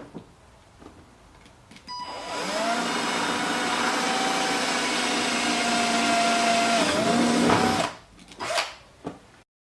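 Electric drill boring the final hole through the Tour-pak shell for a backplate mount: the motor spins up about two seconds in with a rising whine, runs steadily for about six seconds, sags briefly in pitch, then stops.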